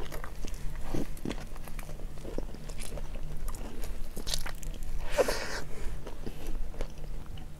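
Close-miked eating of a hot dog: a bite, then wet, crunchy chewing with scattered smacks and clicks, and one louder mouth sound about five seconds in.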